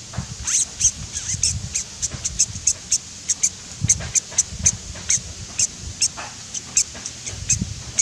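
A bird's rapid, short high-pitched chirps, several a second at an uneven pace.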